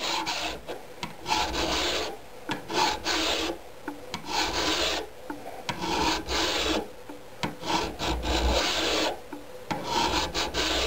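Flat hand file rasping back and forth across the rough cast-iron banjo of a Craftsman wood lathe held in a vise, in repeated strokes about one a second, smoothing down the rough casting surface.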